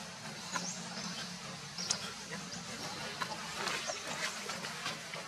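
A few short, high-pitched animal chirps scattered over steady outdoor background noise and a low hum.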